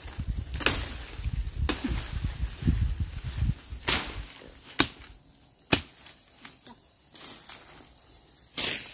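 Grass and weeds being slashed with a hand blade: sharp swishing strikes about once a second, with a pause of a few seconds before the last one. A low rumble sits under the first three and a half seconds.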